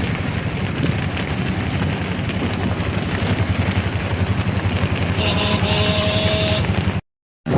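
Road traffic: a steady, loud vehicle engine rumble, with a horn sounding for about a second and a half a little past five seconds in. The sound cuts out briefly near the end.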